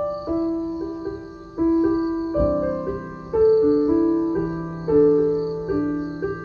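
Background piano music: gentle notes and chords, each struck and left to fade.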